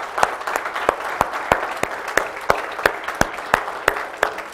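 A congregation applauding, with one person's sharp hand claps close to the microphone standing out at about three a second over the crowd's clapping.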